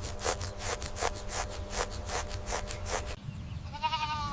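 A rhythmic rasping, about two and a half strokes a second over a low hum. It cuts off just after three seconds in, and near the end a short, wavering bleat follows.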